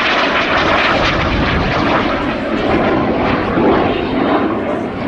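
Jet Provost T3 jet trainer flying a display pass, the steady noise of its small Viper turbojet with mild swells in loudness.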